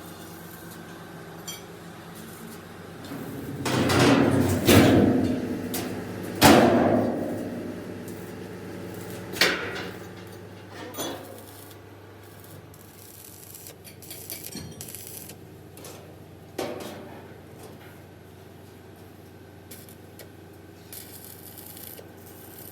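Metal being struck and clanking: a run of loud, ringing blows about four to seven seconds in, then a few lighter knocks spread out, over a steady low hum.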